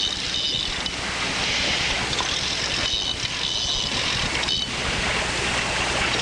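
Steady rush of wind and water on an open boat, with a low steady hum underneath.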